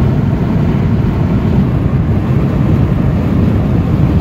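Steady low road and tyre rumble inside the cabin of a car cruising at motorway speed.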